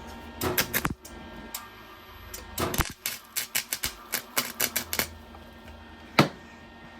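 Electric welder's arc crackling and sputtering in irregular bursts of sharp clicks, stopping and starting several times, with one louder crack a little after six seconds.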